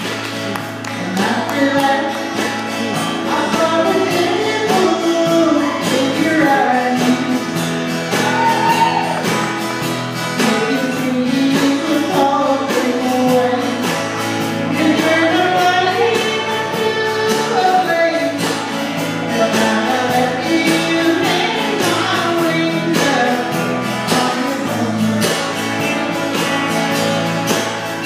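Live band playing a country song: a woman sings lead over acoustic and electric guitars, with a drum kit keeping a steady beat.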